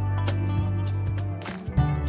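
Background music with a low bass line and a regular beat.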